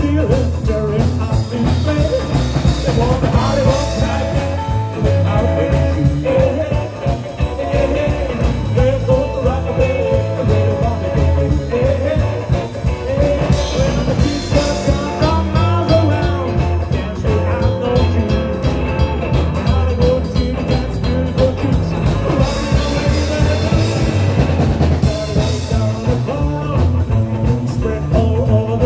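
Live rock and roll band playing: upright double bass, drum kit and electric guitar together, with a steady beat.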